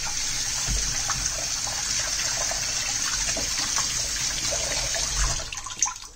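Kitchen tap running onto cut potatoes in a metal mesh strainer as they are rinsed by hand, a steady splashing hiss. The water stops about five and a half seconds in, followed by a few light knocks.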